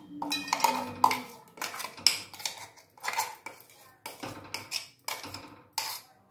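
Steel spoon scraping and knocking against the inside of a steel jar as ground paste is tapped out into a steel pan. The metallic clinks and scrapes come irregularly, about two a second.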